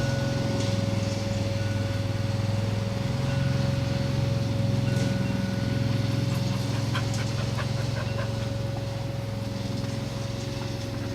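Lawn mower engine running steadily, with a few light ticks and clicks about seven seconds in.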